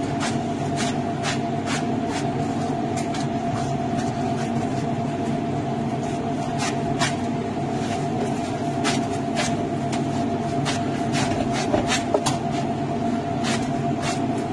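Steady machine hum with a constant tone, under irregular sharp clicks and taps, a few a second, from gloved hands working minced meat in a stainless steel tray.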